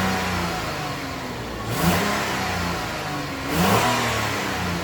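Kia Sportage engine revved hard twice, about two seconds apart, climbing in pitch each time and then settling back toward idle. The revs are a test of a newly replaced exhaust pipe, and the owner is unsure whether he hears a small exhaust leak.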